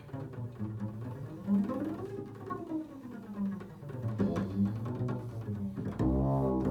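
Slow improvised music of low held notes with sliding, arching tones above them; a louder low droning note comes in about six seconds in.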